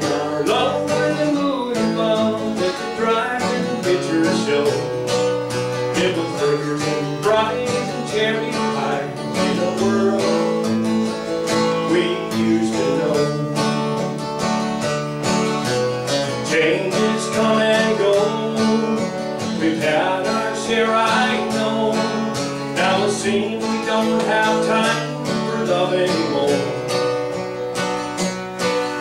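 A man singing a country song, accompanying himself on a strummed acoustic guitar.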